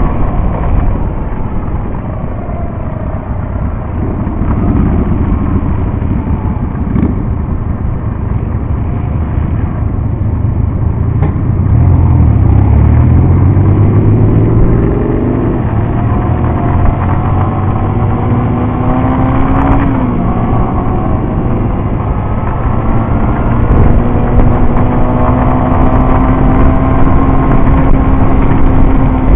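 Motorcycle engine running at road speed. Its pitch climbs under acceleration about halfway through, dips near two-thirds of the way, then holds steady at cruise.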